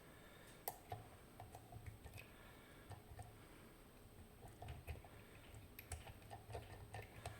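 Faint, scattered light clicks and ticks of a disc-detainer padlock and its pick tool being handled, small metal parts tapping and clicking at irregular intervals.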